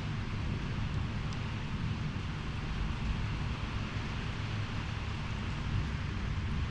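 Storm wind blowing steadily, buffeting the microphone with a low rumble under a broad hiss.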